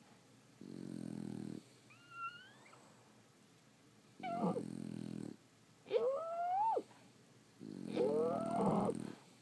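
Sleeping French bulldogs snoring: about five breaths, each around a second long, alternating low buzzing snores with high whistling squeaks that rise in pitch.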